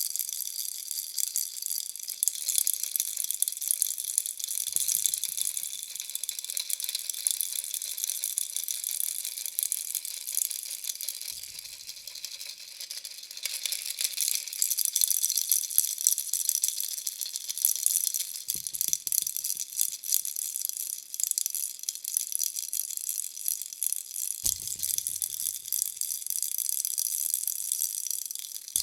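Toy bunny baby rattle shaken on and on, a dense high rattling of small pieces inside, with a few soft low knocks along the way.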